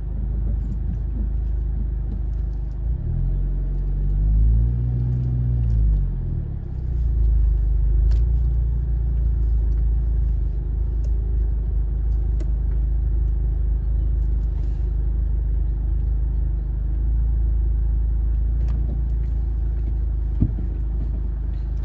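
Volkswagen Polo GTI's engine heard from inside the cabin: a steady low rumble, with the revs rising and falling once about three to six seconds in as the car is manoeuvred in reverse into a parking space. A single click near the end.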